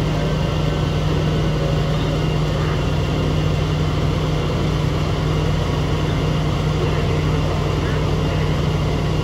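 Fire engine's engine running steadily at one constant pitch, an even low drone.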